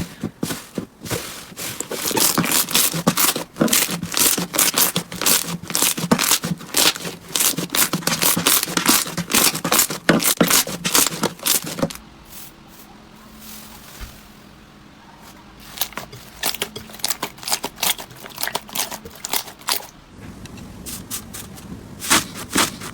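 Slime being squeezed and poked by hand, giving dense runs of sharp crackles and pops. These thin out into quieter, softer squishing twice, about twelve and twenty seconds in.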